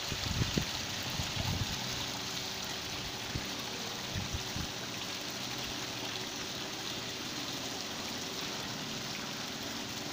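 Bell fountain's water falling into its basin: a steady splashing hiss, with a few low thumps in the first few seconds.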